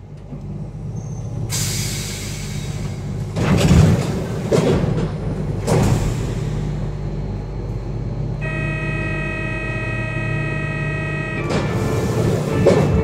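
Interior of an Alstom MF77 Paris Métro car standing at a station: a steady low electrical hum with a hiss and several clunks. About eight seconds in, a buzzing door-closing warning tone sounds for about three seconds, followed by clunks near the end as the doors shut.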